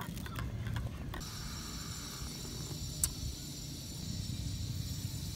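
A spoon clinking a few times against a stainless steel camping cup as coffee is stirred. About a second in, a steady high buzz sets in over a low rumble, with one sharp click about three seconds in.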